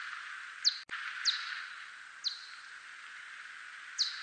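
Calls of a 대륙쇠큰수염박쥐, a whiskered Myotis bat, brought down into hearing range. Four short chirps sweep quickly downward in pitch at uneven intervals over a steady hiss, with a brief click just under a second in.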